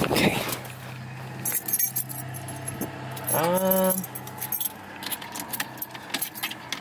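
A ring of keys jangling and clinking as they are handled, with a short pitched tone about three and a half seconds in.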